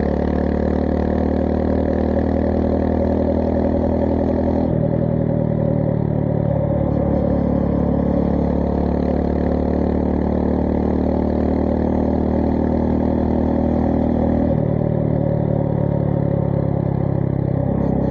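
Honda GB350S's air-cooled single-cylinder engine running on the move through a MILLER Spitfire slip-on exhaust, holding a steady note that steps to a new pitch about five seconds in and again near fifteen seconds.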